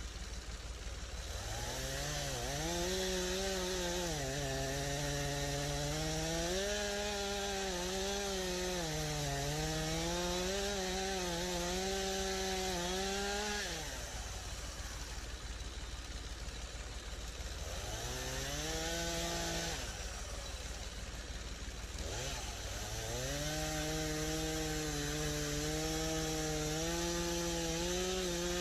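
Stihl MS251 C two-stroke chainsaw revved up to full throttle and cutting wood, its pitch wavering under load. It drops back to idle about halfway through, revs briefly, then runs up into another steady cut for the last few seconds.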